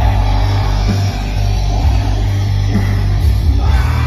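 Black metal band playing live: distorted electric guitars and drums in a dense, continuous wall of sound, heavy in the bass, heard from the crowd through a PA.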